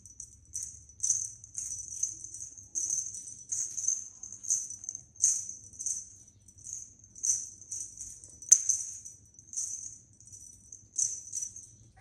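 Small bell on a cat's wand toy jingling as the toy is shaken, in short irregular bursts over and over.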